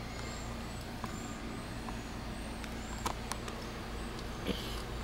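A steady low hum with background hiss, a faint high chirp repeating about twice a second, and a few light clicks and a soft knock from the handheld camcorder being moved.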